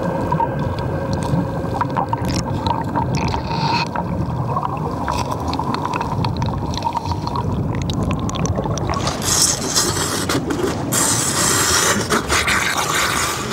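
Water churning and splashing under a continuous low rumble as a tiger shark thrashes at the surface attacking a turtle. From about nine seconds in, a louder hissing rush of splashing and bubbles takes over.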